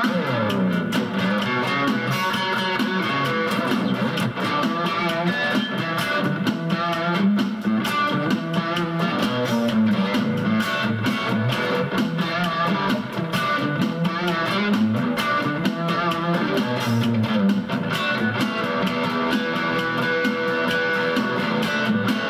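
Electric guitar with a Chinese Alnico pickup in the bridge position playing a melody line with quick runs and some bent, wavering notes, over a steady beat.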